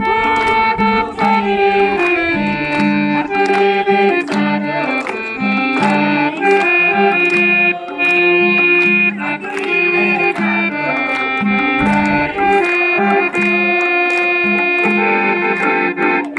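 Harmonium playing a melody in held notes, with a madal hand drum beating steadily along with it.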